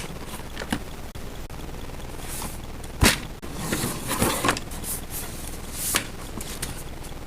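Small objects being handled and put away in a drawer: a sharp knock about three seconds in, then rustling and scraping, and another knock near the end.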